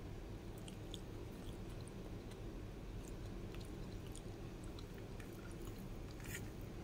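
A person chewing food close to the microphone, with small wet mouth clicks scattered through and a slightly louder click near the end, over a steady low hum.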